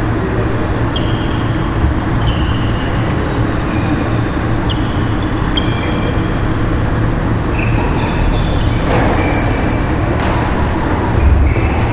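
Sneakers squeaking on a wooden badminton court floor: many short, high-pitched squeaks scattered through, with a couple of sharp hits, over a steady, loud low rumble.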